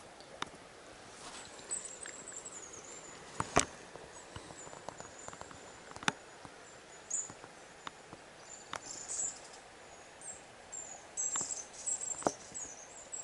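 Scattered sharp clicks and taps from the fly rod, reel and line being handled, the loudest about three and a half seconds in. Underneath is faint high-pitched chirping and twittering that grows busier near the end.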